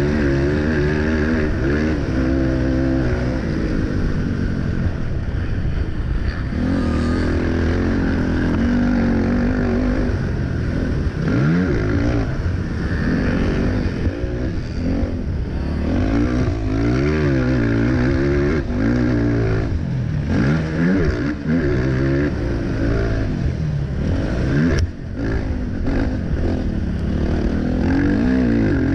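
Racing quad ATV's engine revving up and down as it accelerates out of corners and backs off into them, heard from the quad itself.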